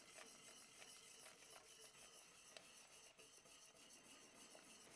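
Faint scraping and rubbing of a whisk stirring a thickening cream sauce in a stainless steel pot, with a few light ticks.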